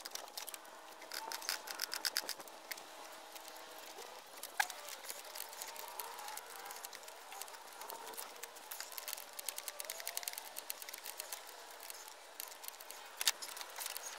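Faint clicking and light metal handling as a fan clutch is spun off by hand and worked loose from the water pump of a 6.0 PowerStroke diesel, with two sharper knocks, one about four seconds in and one near the end.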